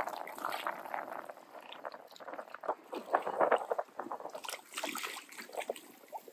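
Water sloshing and splashing irregularly as a big carp is drawn over and into a landing net at the surface, with a louder flurry of splashes about three seconds in.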